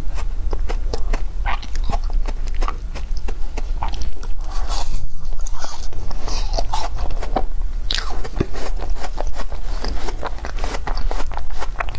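Close-up crunching and chewing of frozen foam ice: a dense run of crisp, crackling bites.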